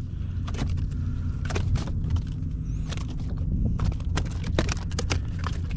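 Irregular knocks and slaps of a freshly landed trout thrashing against the kayak, over a steady low rumble.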